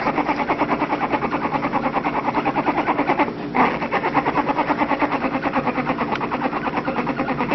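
An animal snoring: a steady, fast rattling drone. It breaks off briefly about three seconds in and comes back louder, as the breath turns.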